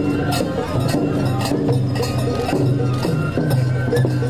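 Japanese festival hayashi music: metallic percussion clinking on a steady beat over held pipe-like tones and a low steady drone.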